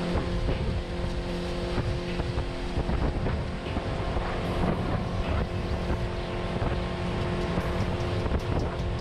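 Boat motor running steadily as the boat moves across the lake, with wind buffeting the microphone and a rushing noise of air and water.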